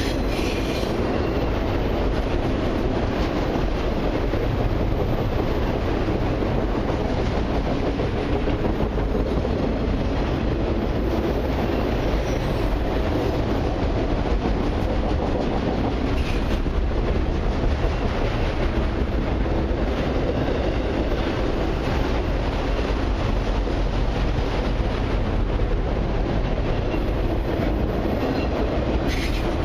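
Steel wheels of a long intermodal and autorack freight train rolling past on the rails in a steady, continuous rumble, with no locomotive passing.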